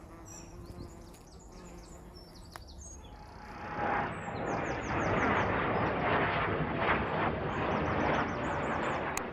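Small songbirds chirping in quick, repeated down-slurred notes. About three and a half seconds in, a steady rushing noise comes up and stays louder than the birds.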